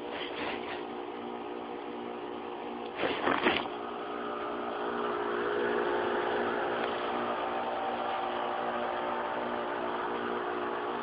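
Armstrong Air central air conditioner's outdoor unit running: a steady hum carrying several steady tones from the compressor and condenser fan. A brief loud rustle comes about three seconds in.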